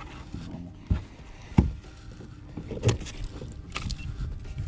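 Handling knocks and bumps on a plastic kayak, a few irregular sharp ones, the loudest about one and a half seconds in, over faint rustling.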